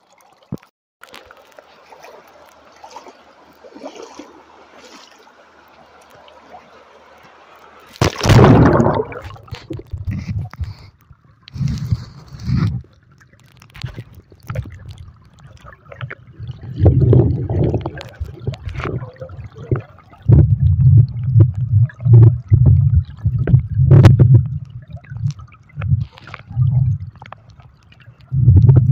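River water heard through a phone sealed in a waterproof case held underwater. A faint hiss at first, then from about eight seconds in, loud irregular surges of low water noise as the current moves around the case.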